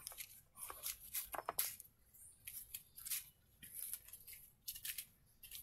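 Small clear plastic baggies of diamond painting drills crinkling and rustling as they are picked up and handled, in short irregular bursts.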